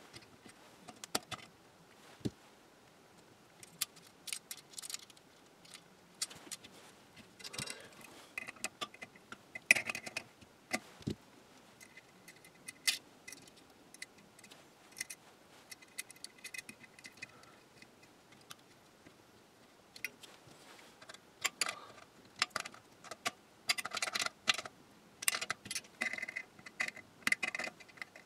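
Hand tools and small metal hardware clicking and clinking: needle-nose pliers and a nut driver working the small nuts, screws and wires of a 1923 Chelsea Model 102 regenerative receiver's metal framework as it is taken apart. The taps come in irregular clusters, some with a short metallic ring, and are busiest in the last several seconds.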